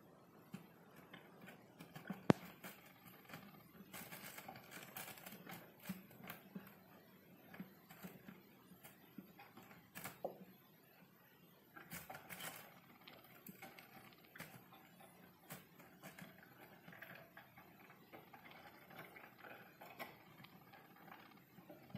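Kitten clawing at a wooden chest: quiet, scattered scrapes and clicks of claws on wood, with one sharp knock about two seconds in.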